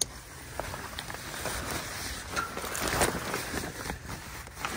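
Fabric cover on a personal watercraft rustling and scraping as it is pulled off the hull, with a sharp click at the very start and scattered small clicks.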